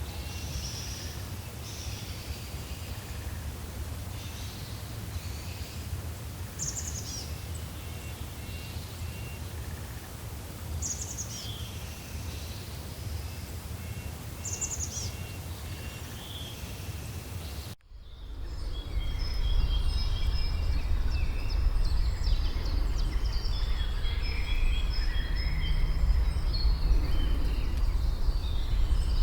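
Forest ambience: several birds calling and singing over a steady low rumble. About two-thirds of the way through, the sound drops out for an instant and switches to a louder recording with a stronger rumble and busier birdsong.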